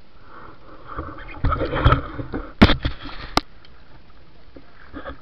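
Water splashing and sloshing around an action camera held at the surface, with two sharp knocks on the camera housing near the middle, as a caught octopus is handled in shallow water.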